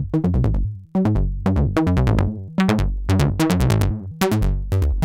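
Make Noise modular synth playing a sequenced subtractive-synthesis line: the STO oscillator through the LxD low-pass gate gives short plucked notes, each starting bright and darkening quickly as the gate closes. The notes come in an uneven stepping rhythm, a few a second with quick doubled hits, over a strong low bass.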